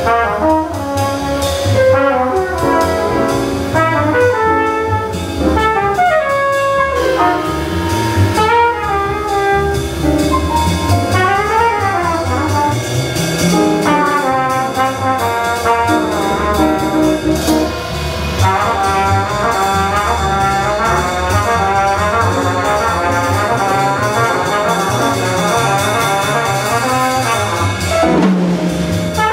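Live small-group jazz: a trumpet solo backed by grand piano, plucked upright bass and drum kit. The trumpet plays flowing lines, with a quick upward-and-back glide partway through and fast runs of notes in the second half.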